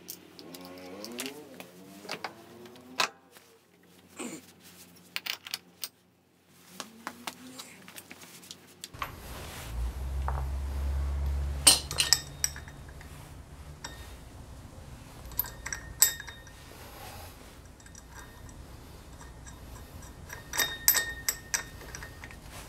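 Metal parts of a Yamaha Cygnus X scooter's belt drive (variator pulley, drive face, washer) clinking and knocking against each other as they are handled and fitted by hand onto the shaft, in scattered sharp clinks. A low steady hum comes in about a third of the way through.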